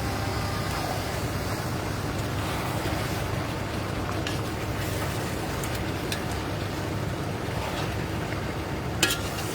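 Pot roast chicken sizzling steadily in a pot as it is stirred, with a few light knocks of the spoon and one sharper knock near the end.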